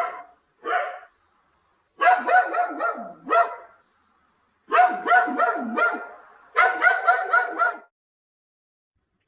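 A dog barking in five quick runs of short yaps, about five or six a second, with brief pauses between the runs.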